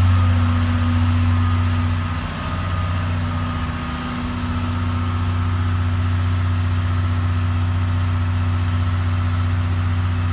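Diesel engine of a DE10 locomotive idling with a steady low hum, easing slightly a couple of seconds in.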